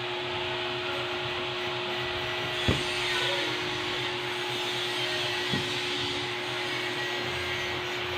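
A machine running steadily: an even hiss with a constant hum tone under it, and two light knocks, one about a third of the way through and one about two-thirds of the way through.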